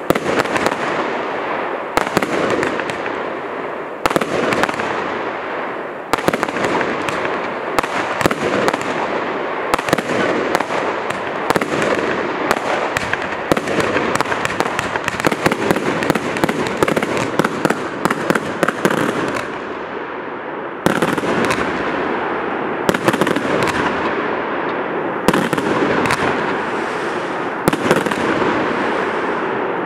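A 225-shot consumer firework cake firing nonstop: a dense run of sharp launch pops and bursts, with a heavier bang every couple of seconds. It eases off briefly about two-thirds of the way through, then comes back in louder.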